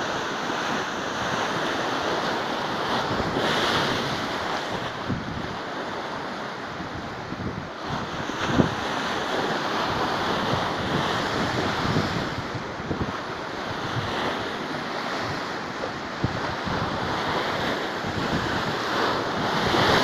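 Rough, stormy sea: waves breaking and washing against a stone seawall in a continuous surf, rising and falling as each wave comes in. Wind buffets the microphone throughout.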